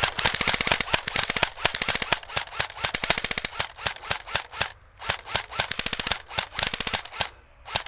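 Rapid automatic gunfire: a long, continuous burst for about three and a half seconds, then several shorter bursts with brief pauses, and a single last shot near the end.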